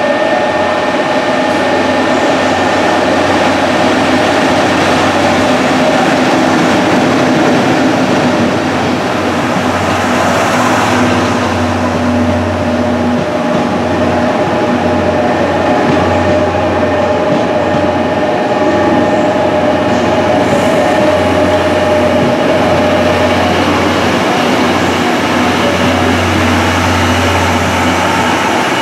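EF65 electric locomotive and its 14-series passenger coaches rolling past along a station platform: a steady rumble of wheels on rail with a low hum. Several steady whining tones sound over it and fade out about two-thirds of the way through.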